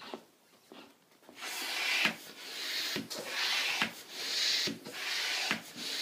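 Hand balloon pump being worked in strokes, each a hissing rush of air into a balloon, about one stroke a second.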